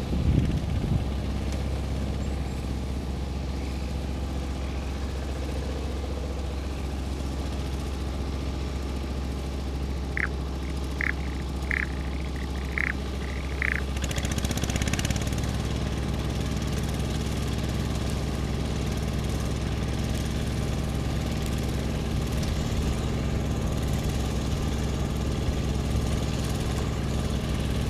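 Yanmar YC950 walk-behind tiller engine running steadily under load while puddling a flooded rice paddy, slightly louder in the second half. About ten seconds in there are five short, high calls, roughly one every 0.7 seconds.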